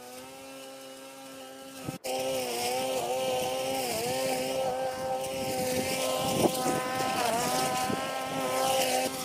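Cordless electric string trimmer's motor whining steadily as its nylon cutting line spins through grass, the pitch dipping briefly several times as the line takes on load. There is a short break about two seconds in, and it is louder after it.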